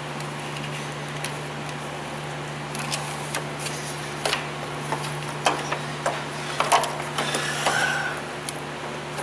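Scattered clicks, scrapes and rustles of hands working on a car's wiring harness, sparse at first and coming thicker from about three seconds in, over a steady low hum.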